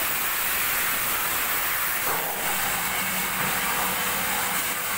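Steady hissing noise of metal-workshop machinery at work, with a faint low hum joining about two seconds in.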